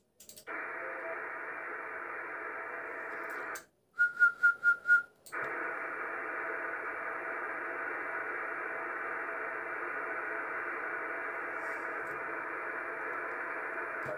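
Yaesu FT-450D transceiver switched on: a click, then steady receiver hiss from its speaker. About four seconds in, the hiss cuts out for five quick, loud beeps at one pitch, then returns.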